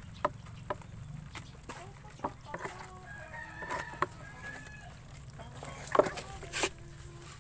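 A rooster crowing in the background, its held calls a few seconds in, over scattered clicks and rattles of shrimp, crabs and small fish being handled in a plastic basin, with a sharp knock about six seconds in.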